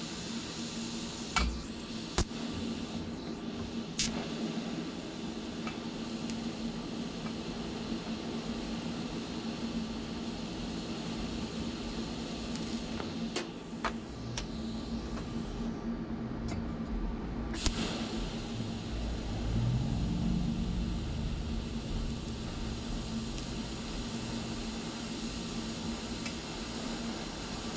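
TIG welding on stainless steel exhaust tubing: a steady hiss over a constant hum, with a few sharp clicks.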